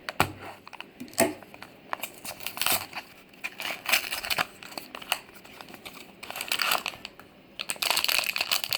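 Blind box packaging being opened by hand: irregular crinkling, tearing and crackling, building into continuous crinkling near the end.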